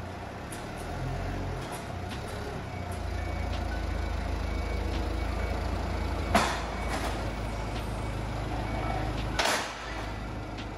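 Olive mill machinery running with a steady low hum, crushing and milling the olives into paste. Two loud clanks come through, about six seconds in and again near the end.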